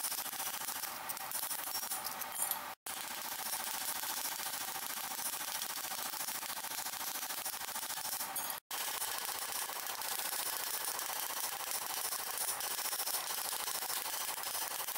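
Forge running with a steady hiss of air and fire, with no hammer blows. The sound cuts out for an instant twice.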